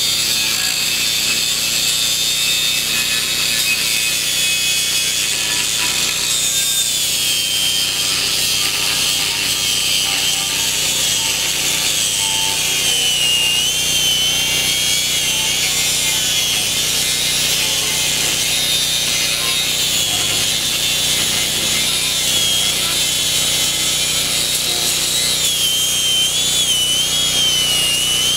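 DeWalt 7-amp angle grinder cutting through the steel shell of a sealed AC compressor: a continuous grinding hiss with a high motor whine that wobbles up and down in pitch as the wheel works the cut.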